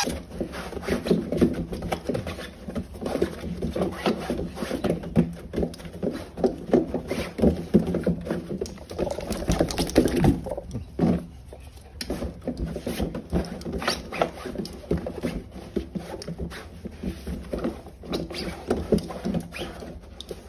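A wet dog scrabbling and rubbing about on a raised dog bed and a towel: a busy run of quick scuffs, taps and rustles from paws, claws and fabric, with a brief lull about halfway through.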